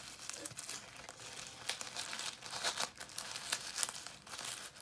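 Packaging crinkling and rustling as it is handled, in irregular crackly bursts with a few sharper crackles.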